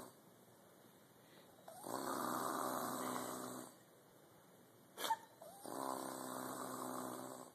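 A sleeper snoring deeply: two long, rasping snores of about two seconds each, with quiet pauses between them. A short sharp click comes just before the second snore.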